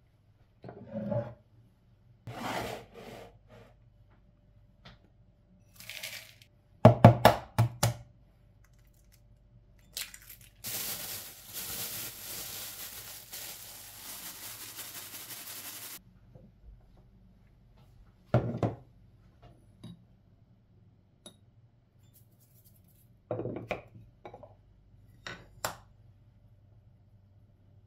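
Kitchen handling sounds: scattered knocks and clatters of things set down on the counter, then about five seconds of steady crinkling from a plastic bag of parsley, and a few more knocks later as the meat mixture is seasoned.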